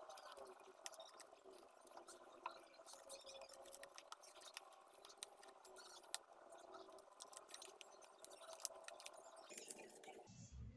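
Faint handling noise of a gloved hand wiping glossy paper with a cloth: soft rustling and many small scattered ticks.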